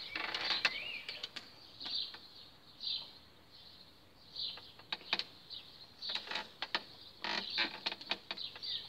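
Small birds chirping on and off, with short high calls and a rising-falling whistled note near the start. Scattered sharp clicks and rustles, bunched a little past the middle.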